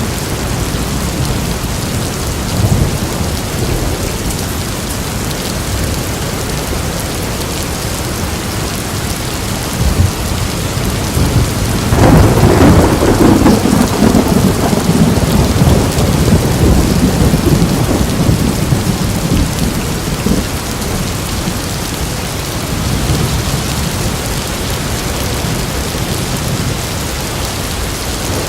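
Steady rain during a thunderstorm, with a loud clap of thunder about halfway through that rumbles on for several seconds before fading back into the rain.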